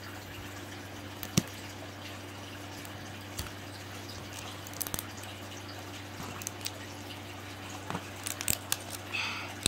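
Sparse small clicks and taps of fingers handling a plastic capsule egg and picking at its shrink-wrap sleeve, with a cluster of clicks near the end. A steady low hum runs underneath.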